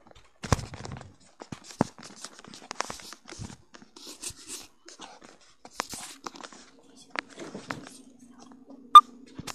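Handling noises: scattered clicks, knocks and rustles, with a sharp loud click about nine seconds in and a low steady hum starting shortly before it.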